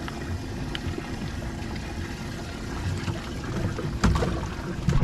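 Bass boat on the water: a steady low rumble, with a sharp knock about four seconds in.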